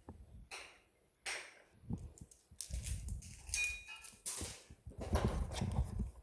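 Packaging being handled and opened: short scrapes and rustles of cardboard and plastic, a brief squeak about halfway through, and uneven knocks and thumps as the box and its contents are moved about.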